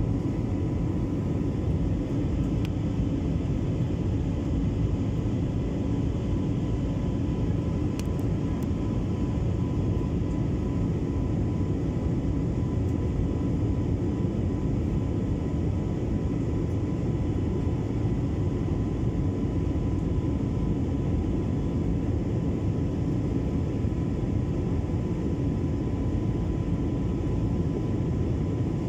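Jet airliner cabin noise at a window seat beside the engine in flight: a steady, unchanging rush of engine and airflow noise, heaviest in the low end, with a faint steady high whine.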